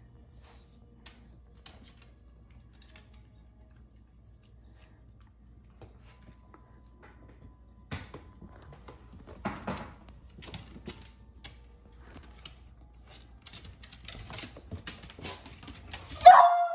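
Scattered light clicks and taps, thickening in the last few seconds, then a short loud bark from a beagle right at the end.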